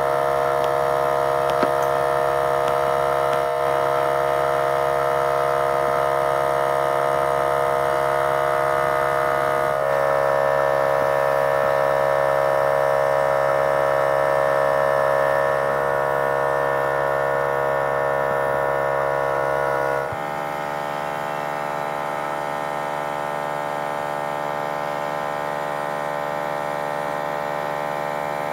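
A steady machine hum made of many even tones. It changes abruptly about ten seconds in and again about twenty seconds in.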